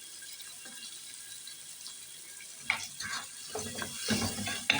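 Frying in a pan: a steady sizzle of tomato and green chili cooking in hot oil, with irregular clicks and scraping of a spoon stirring the pan starting about two and a half seconds in.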